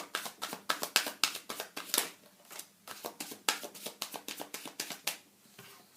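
A tarot deck being shuffled by hand: a quick run of card slaps and flicks that stops about five seconds in.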